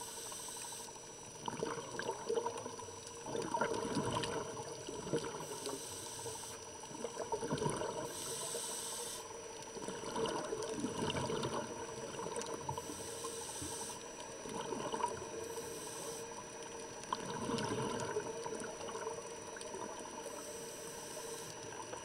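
Scuba diver breathing through a regulator, heard underwater: a hissing inhalation alternating with a rush of exhaled bubbles, about one breath every few seconds.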